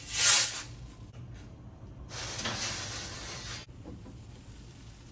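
Perforated metal pizza peel scraping against a steel baking plate as a pizza is slid into the oven, a short loud scrape just after the start. About two seconds in a rushing hiss runs for about a second and a half, then stops suddenly.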